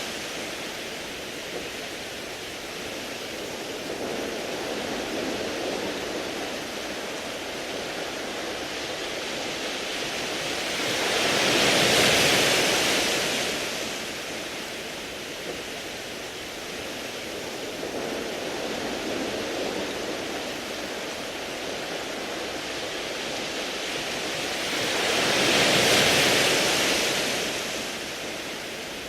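Sea waves washing over a beach of smooth round pebbles: a steady rushing wash, with two bigger waves surging in and hissing about twelve seconds in and again near the end.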